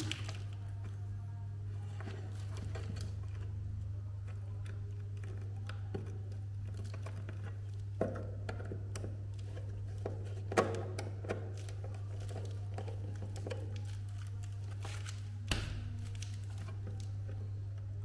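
Screwdriver and cable handling at an open plastic push-button switch box, wires being fastened into its screw terminals: scattered small clicks and taps, a few of them louder, over a steady low hum.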